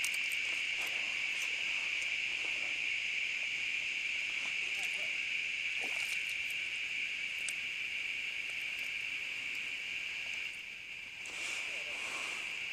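A steady, high-pitched insect chorus of crickets or cicadas that does not let up, with a few faint scattered clicks over it.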